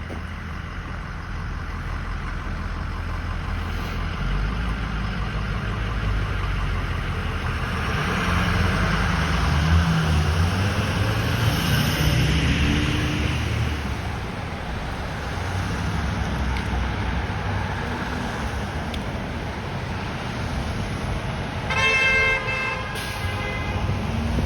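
City road traffic running steadily, louder for a few seconds as a vehicle passes in the middle. Near the end a vehicle horn sounds once for about a second.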